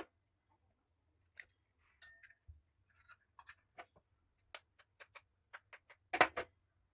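Eggs being cracked into a bowl: a series of sharp taps and clicks of eggshell against the bowl's rim, with a louder cluster of cracks about six seconds in.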